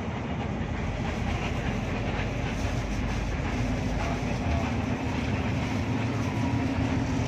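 Hino RK8 R260 coach's engine and road noise heard inside the cabin while driving: a steady low rumble. An engine hum comes up about halfway through and holds.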